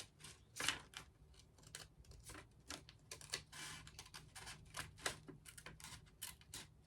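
Irregular soft clicks and rustles, several a second, from hands handling paper and craft supplies while making a vision board.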